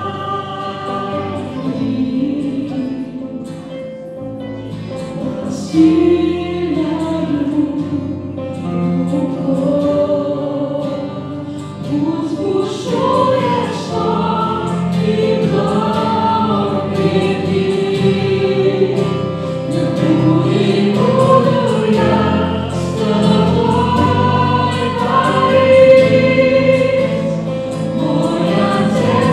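A worship band performing a song: several men and women singing together into microphones over keyboard, acoustic guitar and bass guitar. The singing grows fuller and louder about twelve seconds in.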